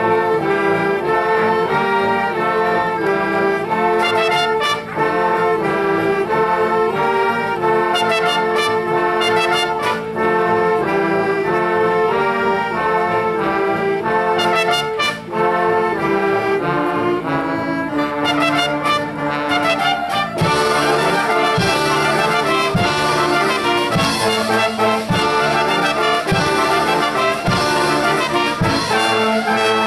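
Concert band playing, with brass out in front of the woodwinds. The music starts right after a brief pause. About twenty seconds in, regular drum beats join and the band grows fuller.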